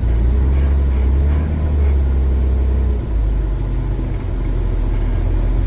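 The diesel engine of a large wheel loader running steadily, heard from inside the cab as the machine is driven up onto a trailer. It is a loud, low drone whose pitch drops about three seconds in, with a few faint knocks in the first two seconds.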